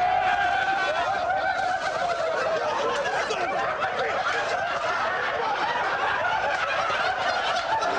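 A group of men laughing together, many voices overlapping as a practical joke is sprung on a teammate.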